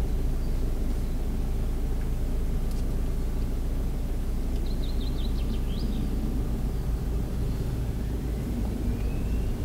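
Audi Q5 running at low speed over an off-road forest track, a steady low engine and drivetrain rumble heard from inside the cabin.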